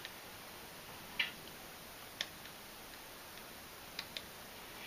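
Quiet room tone with a few faint, short clicks: one about a second in, one about two seconds in, and two close together about four seconds in.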